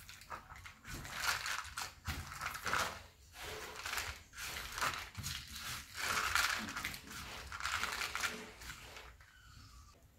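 Hands squeezing and mixing steamed rice noodles on a banana leaf: irregular soft rustling and crinkling that fades near the end.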